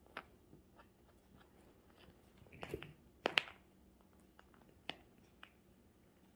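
A cat biting and chewing at a fabric cat pillow toy: a few faint, scattered crunchy bites and clicks, the loudest a little past three seconds in.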